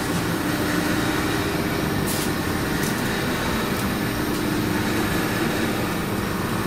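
ELGI 25 HP air compressor running steadily inside its enclosure: a constant mechanical drone with a steady hum.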